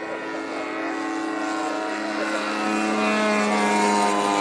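Engine and propeller of a radio-control scale model airplane flying past. The steady engine note grows louder until about four seconds in, and its pitch dips slightly as the plane passes.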